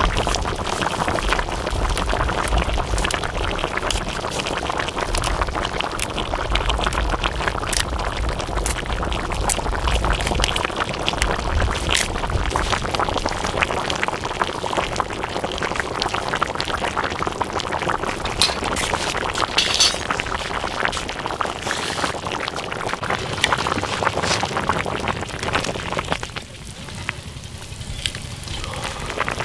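Fish broth boiling in an aluminium wok, a steady bubbling with many small pops, briefly quieter near the end.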